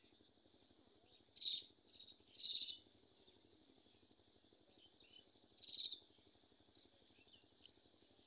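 Bird calls: a few short, high chirps in the first three seconds and one more about six seconds in, over a quiet outdoor background.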